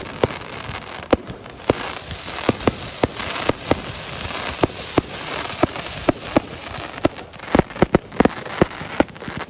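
Fireworks display: shells bursting in a fast, irregular series of sharp bangs, about three a second, over a steady crackle and hiss of sparks. The bangs come closer together near the end.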